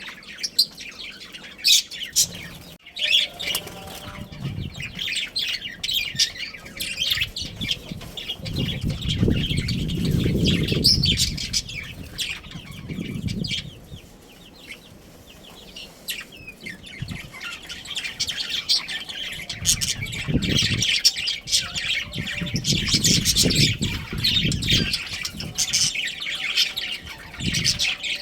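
A flock of budgerigars chirping and chattering continuously, many birds at once. Two longer stretches of low fluttering noise, one about a third of the way in and one about two-thirds in, fit wings flapping.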